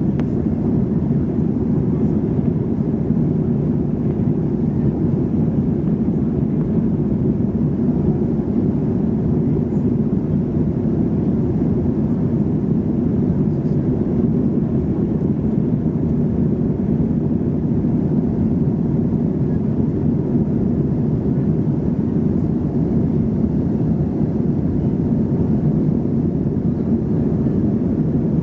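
Steady cabin noise inside a Boeing 737-400 in flight: an even, low rumble of engines and airflow that holds constant throughout.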